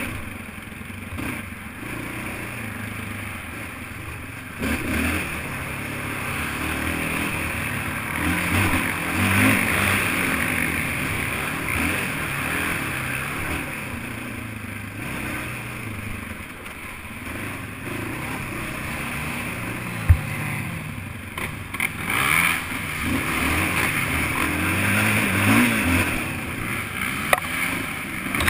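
ATV engine running under load, its pitch rising and falling repeatedly as the throttle opens and closes, with a sharp knock about twenty seconds in.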